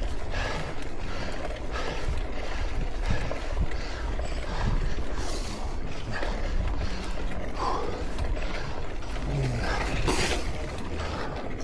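Mountain bike rolling fast down a paved road: steady tyre rumble and wind buffeting the microphone, with the bike rattling over the surface and the freewheel hub ticking as it coasts.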